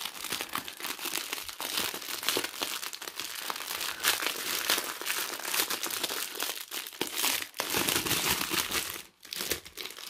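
Clear plastic wrapping around a roll of bagged diamond-painting drills crinkling steadily as it is handled, with a brief lull near the end.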